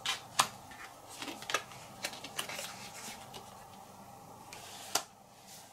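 Board-game cards being picked up and laid down on a table: a string of light taps and slides, thickest in the first two and a half seconds, with a last sharper tap about five seconds in.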